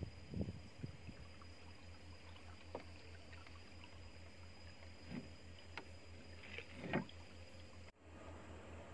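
A few light knocks from gear being handled in a small wooden canoe, the loudest about seven seconds in, over a faint, evenly pulsing low hum.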